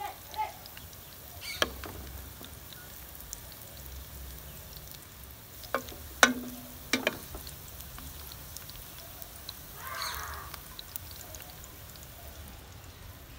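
Wooden spoon knocking and scraping against a stainless steel pot while ladling a vegetable sauce, with a few sharp knocks, one around six seconds in leaving a short metallic ring, over a faint steady background.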